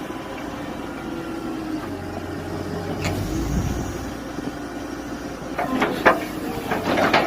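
Mini excavator engine running steadily, with a few sharp knocks near the end.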